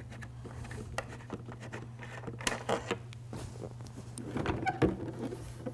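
Small clicks, rubs and knocks of hands working the last bolt out of a Harley-Davidson batwing outer fairing and pulling the fairing loose, over a steady low hum. The knocks grow louder about four seconds in.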